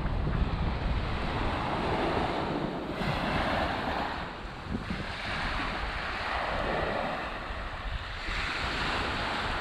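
Small waves washing up onto a sandy beach, the surf swelling and fading about four times, with wind buffeting the microphone.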